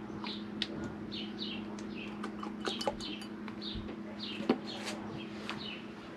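A bird chirping over and over, short falling chirps about twice a second, over a steady low hum. Light clicks and taps come through, with one sharp tap about four and a half seconds in.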